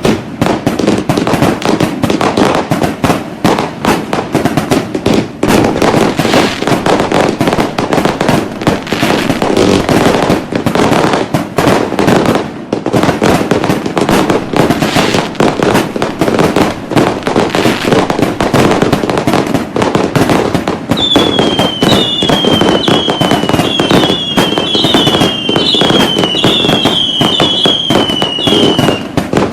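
Dense, continuous barrage of fireworks and firecrackers, with bangs and crackling packed so close they barely pause. About two-thirds of the way in, a run of short falling whistles joins the bangs, one after another.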